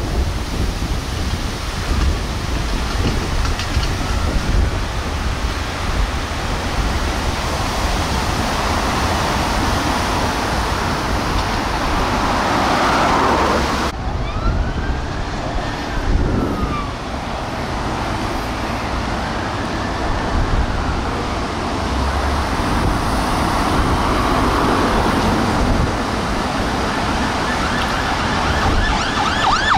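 Emergency vehicle sirens sounding in slow rising and falling wails over road traffic noise and a steady low rumble; right at the end a faster yelp siren comes in louder.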